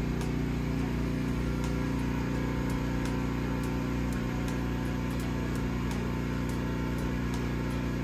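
A motor or small engine running steadily with an even hum.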